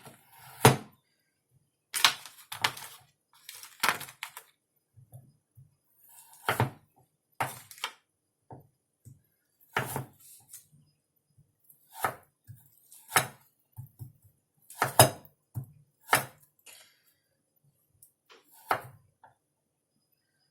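Knife cutting chicken nuggets on a cutting board: irregular sharp knocks of the blade hitting the board, roughly one every second or two.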